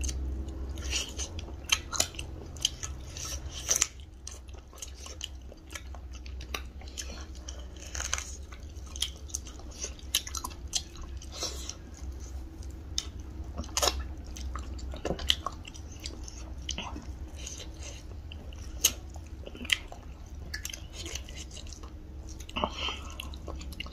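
Two people chewing and eating rice and curry with their fingers: wet chewing, lip smacks and scattered small clicks, over a steady low hum.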